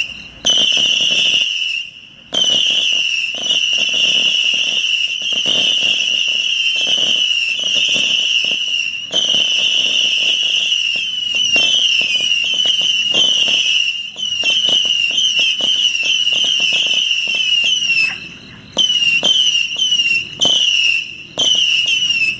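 Myth And Mayhem firework barrage firing a rapid, near-continuous volley of whistling shots: a shrill whistle made of many short falling strokes, with sharp pops through it, breaking off briefly a few times.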